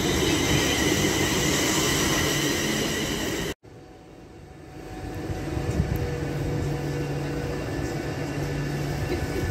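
A London Northwestern Railway electric multiple unit running past, its wheels and motors giving a steady rumble with a high, several-pitched whine. It cuts off suddenly, followed by an Avanti West Coast express train rolling by close at hand with a steady low hum, growing louder as it passes.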